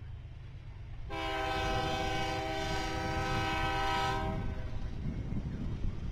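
Diesel locomotive's multi-note air horn sounding one long blast of about three seconds, starting about a second in and cutting off, over the low rumble of the passing freight train.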